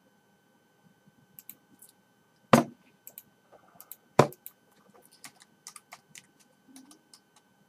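Typing on a computer keyboard: two louder, sharp clicks about two and a half and four seconds in, then a quick run of light key clicks as an IP address is typed.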